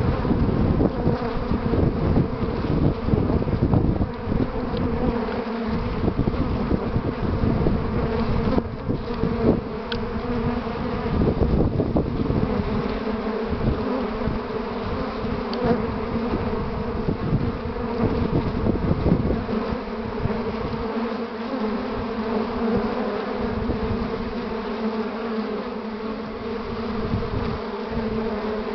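Honeybee colony buzzing steadily at the hive entrance during a heavy willow pollen flow, with low rumbling that dies down about two-thirds of the way in.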